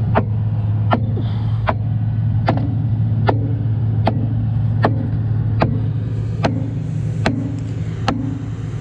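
Excavator diesel engine running steadily, with sharp, evenly spaced clicks about once every eight-tenths of a second.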